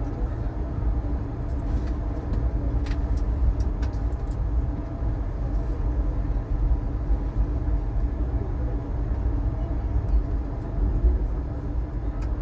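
Passenger train running at steady speed, heard from inside the coach: a continuous low rumble with a steady hum and a few faint clicks about three seconds in.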